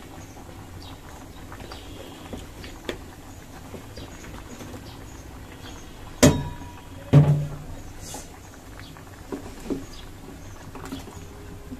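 A wooden spatula knocking against an aluminium cooking pot while vegetables are stirred in: two loud knocks about a second apart past the middle, the first with a short metallic ring, then two lighter taps, over small scattered clicks and scraping.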